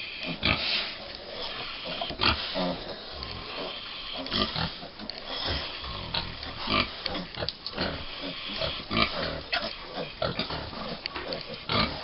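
American Guinea Hog sows and five-week-old piglets grunting and squealing as the piglets jostle to nurse, a busy stream of many short, irregular calls.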